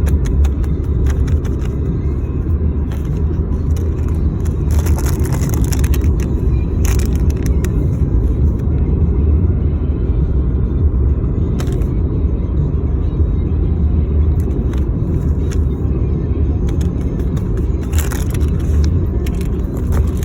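A steady low rumble with a few brief crackling rustles over it.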